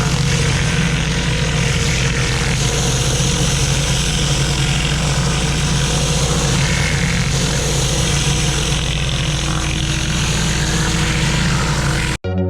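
A pressure washer's engine running steadily under the hiss of the high-pressure water jet on the patio. It cuts off abruptly right at the end.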